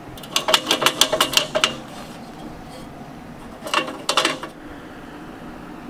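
Notched metal bracket on a rusty hibachi grill worked by hand, clicking and rattling against the grill body. There are two runs of quick, ringing metallic clicks: the first lasts about a second and a half, and a shorter one comes about four seconds in.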